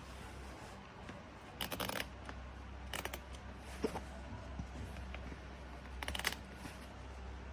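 Short clusters of clicking and rustling, four times, over a faint low steady hum, like something being handled.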